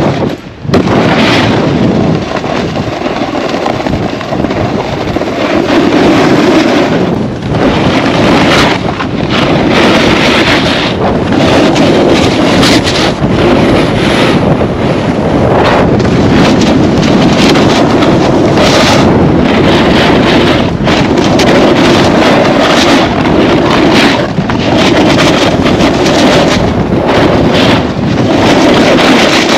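Heavy wind buffeting the microphone while riding downhill at speed on snow, with the rush of sliding and irregular scrapes as edges bite the snow. It surges and eases with speed, dropping out briefly about half a second in.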